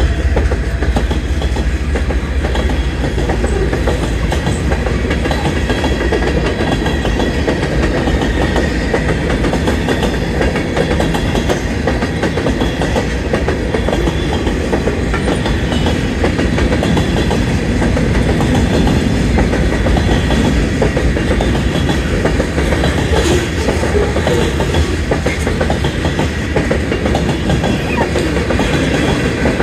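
Freight cars of a Union Pacific manifest train rolling past, a loud, steady rumble of steel wheels with dense clacking over the rail joints.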